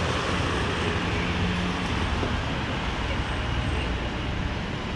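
Road traffic: a passing vehicle's engine hums low and steady, then drops away about two seconds in, leaving a steady wash of traffic noise.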